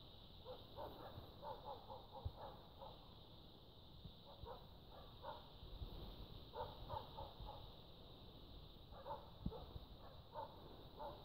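Faint, distant dogs barking in bursts of several quick barks, the bursts a few seconds apart.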